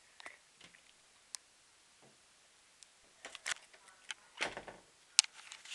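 Scattered soft knocks and rustles of someone walking and handling a camera, with one sharp click about five seconds in.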